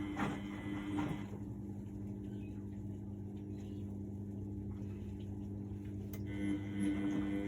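A 1999 Miele Novotronic W828 washing machine running, with a steady motor hum. A noisier, brighter layer of sound over the hum stops after about a second and comes back near the end.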